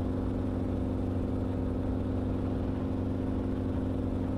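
Enstrom helicopter in steady flight: a constant drone of engine and rotor with an even hum that holds one pitch.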